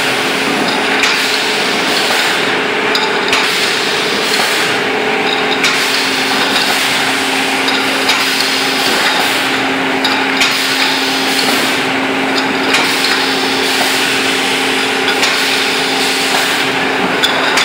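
Automatic aerosol filling and crimping machine running: a steady motor hum with a mechanical clatter, and metallic clicks and knocks every second or two as cans index through the filling and crimping heads.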